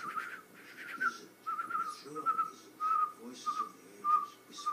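A person imitating a bird's chirp with the mouth: about eight short, high chirps, roughly two a second, each on much the same pitch with a breathy hiss.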